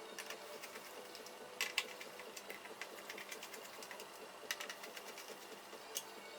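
Scattered light clicks and taps, a few sharper than the rest, over a faint steady hum.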